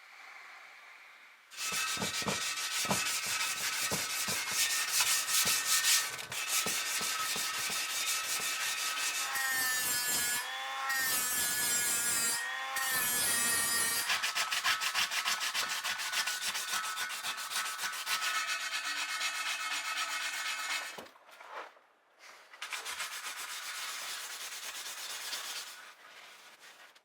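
Machine sanding: an electric sander's motor whine together with the rasp of abrasive on the workpiece. The pitch dips and recovers twice around the middle, and the sound drops out briefly near the end before going on more quietly.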